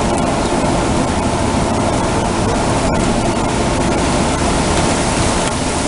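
Heavy thunderstorm rain pouring down: a loud, steady, even hiss as the downpour grows heavier.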